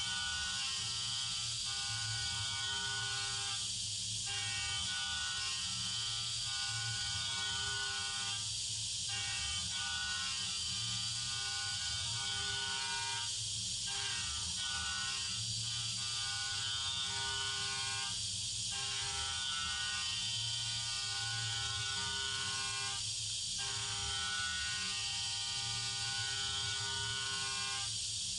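Rottler P69 CNC machining centre porting an aluminium Alfa Romeo Boxer 16v cylinder head through its manifold: a steady spindle whine over the hiss of coolant spray. The whine breaks off briefly about every five seconds, then resumes.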